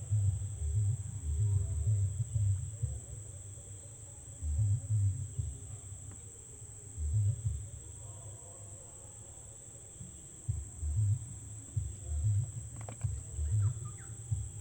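Steady high-pitched drone of insects, with irregular low rumbling thumps coming and going and a single sharp knock near the end.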